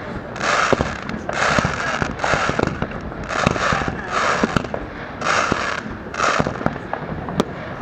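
Fireworks going off: a run of crackling, hissing bursts about once a second, with sharp bangs among them.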